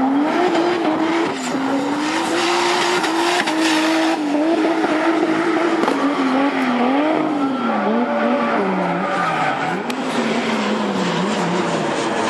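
Drift car engine held high and revving up and down as the car slides sideways, rear tyres squealing and skidding on tarmac and smoking. The engine pitch sags and drops over the second half as the car comes out of the slide.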